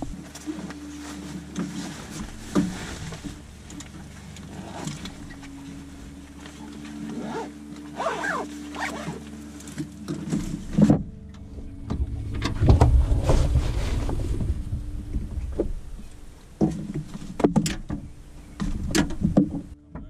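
Outdoor rustle and low wind rumble, then backpacks being handled and set into a car's boot: a heavy rumble of bags against the boot, followed by several sharp knocks and clicks.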